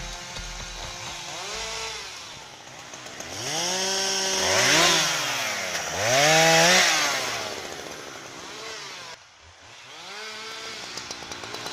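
Husqvarna 365 two-stroke chainsaw revving up and down again and again while bucking branches. Its pitch climbs to full throttle and drops back to idle about five times. The loudest runs come about halfway through, with the chain biting into wood.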